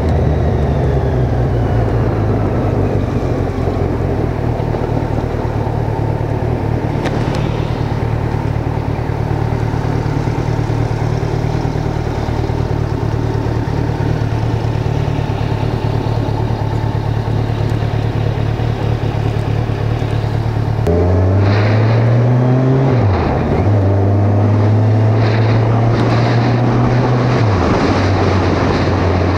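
Kawasaki Ninja 1000 inline-four engine running steadily at low revs. About two-thirds of the way through it pulls away, the engine note rising and falling as it shifts up through the gears, then holding steady.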